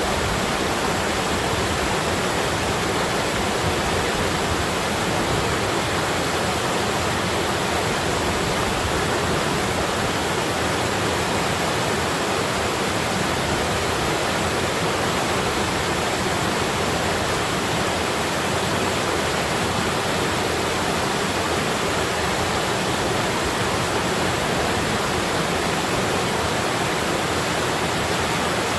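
Stream water flowing and babbling, a steady, unchanging rush.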